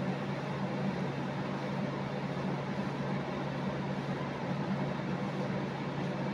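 Steady low machine hum over an even hiss, unchanging throughout.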